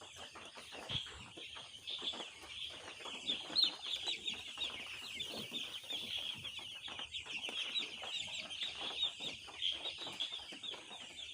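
A brood of two-day-old broiler chicks peeping continuously: many short, high chirps overlapping without a break.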